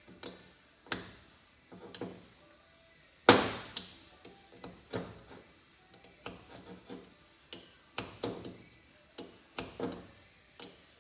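Irregular metallic clicks and clinks of an open-end wrench turning the choke nut on a motorcycle carburetor and knocking on a metal workbench, with one louder clank about three seconds in.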